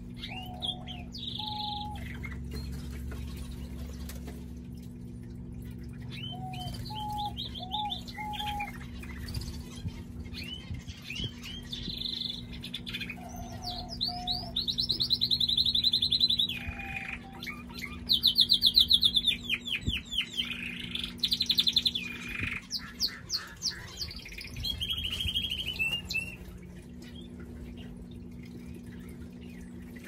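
Canary singing a long song of rapid trills and rolling phrases, the fast trills loudest around the middle. The song stops a few seconds before the end.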